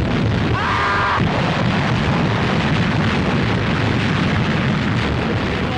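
Artillery barrage: massed field guns firing continuously, a dense unbroken rumble of gunfire and blasts.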